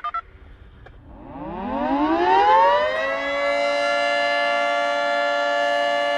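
Outdoor storm warning siren winding up for its monthly test: from about a second in it rises steadily in pitch, then holds a loud, steady tone of several notes from about three seconds in.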